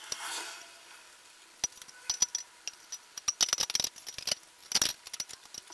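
Clicks, taps and light rattles of an IKEA RIGGA clothes rack's steel tubes and plastic fittings being fitted together as the top rail goes onto the uprights: an irregular run starting about one and a half seconds in, with one louder knock near the end.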